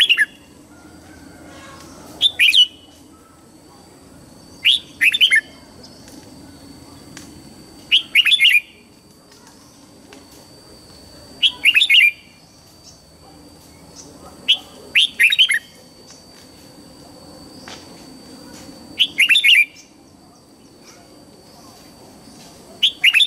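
Red-whiskered bulbul singing short phrases of quick, bright notes, one every three to four seconds, about seven in all. A faint steady high tone sounds underneath.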